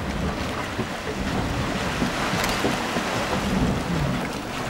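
Yellowstone's Dragon's Mouth Spring: boiling water surging and sloshing out of a steaming cave, with steam rushing out over a steady low churning.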